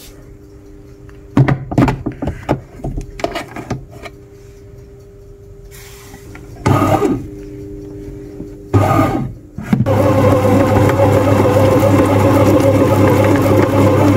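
Bread pan clunking into a bread machine, then the machine's kneading motor starting in two short bursts and running steadily from about ten seconds in, the paddle mixing flour and starter into dough.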